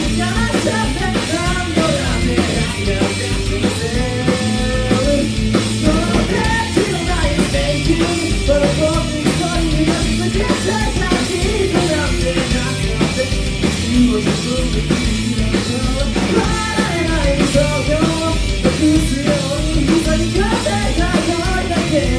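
Live rock band playing: drum kit, electric guitar and bass guitar, with a bending melody line over a steady beat.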